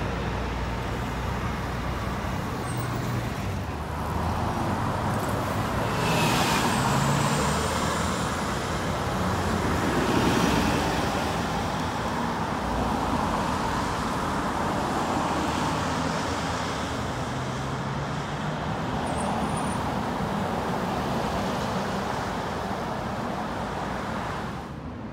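Road traffic going by: a city bus and cars and a pickup truck driving past, steady tyre and engine noise that swells and eases as vehicles pass.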